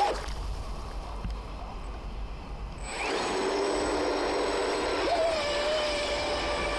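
RC boat's electric drive motor whining as it spins 3D-printed screw propellers. The whine sets in about three seconds in and steps up to a higher, steady pitch about two seconds later.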